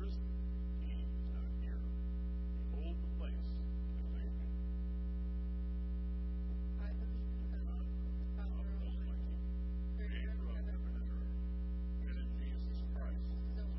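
Steady electrical mains hum, a low buzz with a ladder of evenly spaced overtones, with faint, indistinct voices underneath.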